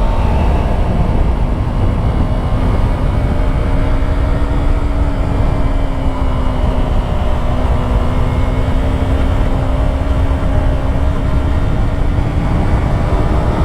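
Yamaha YZF-R3 motorcycle's parallel-twin engine running at a steady cruise, its pitch drifting only slightly, under heavy low wind rush on the microphone.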